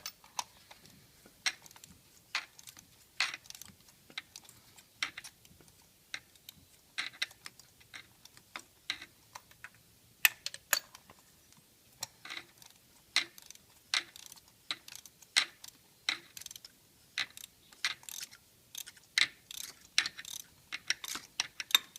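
Ratchet wrench clicking in irregular runs of sharp clicks, a few a second, as a spark plug socket is worked to unscrew a spark plug from the engine.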